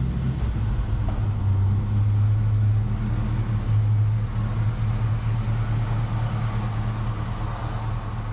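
Chevrolet C10's 305 small-block V8 running at low speed as the truck backs slowly out, a steady low hum that eases off a little toward the end.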